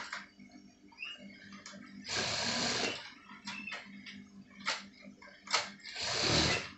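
Industrial sewing machine stitching jacket fabric in two short runs of under a second each, over a steady motor hum. Several short clicks fall between the runs.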